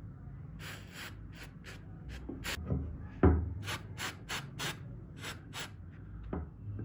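Short, sharp rubbing strokes worked by hand against the rusty metal of a pair of pliers, about two or three a second. A solid knock falls about halfway through and a lighter one near the end.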